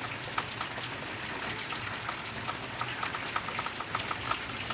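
Heavy rain falling steadily, with many individual drops splashing into puddles and onto hard surfaces.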